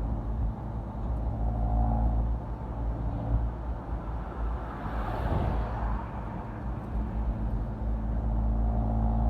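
Steady low motor-vehicle rumble, with a louder rush of noise that swells and fades about five seconds in, like a vehicle passing close by.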